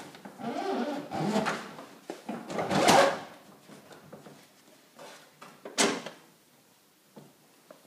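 The two sections of a Pitney Bowes DI600 folder inserter being slid together across a bench: sliding and scraping in the first three seconds, then a sharp knock about six seconds in as they locate into the bottom section, followed by a few light clicks.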